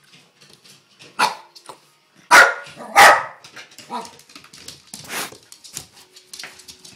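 Terrier barking: a bark about a second in, two loud barks close together in the middle, then several quieter barks spaced a second or so apart.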